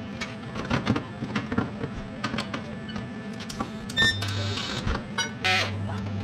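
Workshop clatter: a run of sharp metallic clicks and knocks, with a low hum that cuts in and out, the longest stretch starting about five and a half seconds in.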